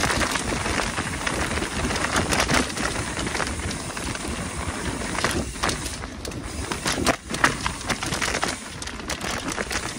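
Mountain bike riding fast down a dirt singletrack: a steady rush of wind and tyre noise with frequent knocks and rattles from the bike over the rough trail, and one sharper knock about seven seconds in.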